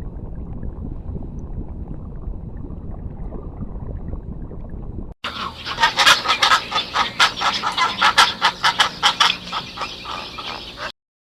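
A low, steady rumbling noise for about five seconds. After a sudden cut, domestic poultry call loudly in rapid, overlapping calls, several a second, which stop abruptly.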